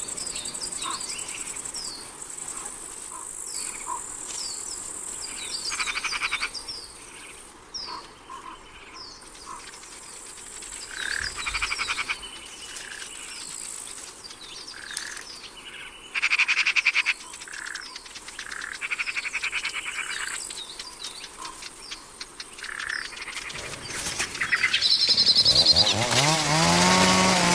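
Forest soundscape: birds chirping in short falling notes over a steady high insect buzz, broken by several bursts of rapid pulsed calls. About three seconds before the end a chainsaw engine starts up and revs, rising and falling in pitch, and it is the loudest sound.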